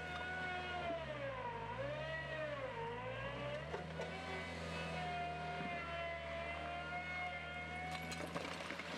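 Veper L 75 skid steer loader running, a low engine hum with a higher whine over it. Around two seconds in the pitch sags twice as the machine is put under load, then it recovers and holds steady.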